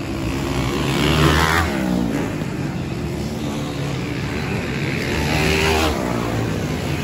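Motocross dirt bikes' engines revving hard as the bikes race over the track. Two bikes come through louder, about a second in and again around five to six seconds in, their engine pitch sweeping down as they go past.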